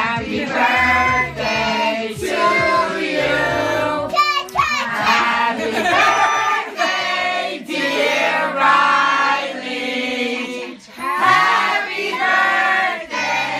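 Music: a song with high sung vocals over a backing track with a bass line.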